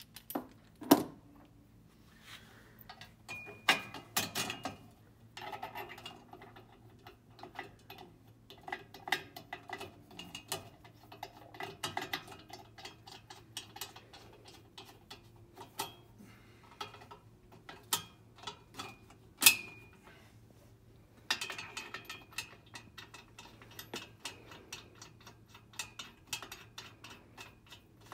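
Hand-tool work on metal fittings: runs of rapid small clicks, like a ratchet or threads turning, and occasional sharp metallic knocks. The loudest knocks come about a second in and near twenty seconds in. The sounds come as brass plumbing fittings are handled with a wrench and fitted into a slotted upright.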